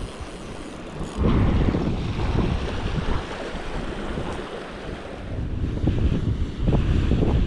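Wind buffeting the microphone in uneven gusts, becoming much louder about a second in, over the rush of water running through a weir.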